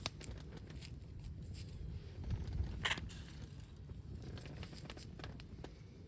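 Wind rumbling on the microphone, with scattered small clicks and a sharper crack a little before the middle.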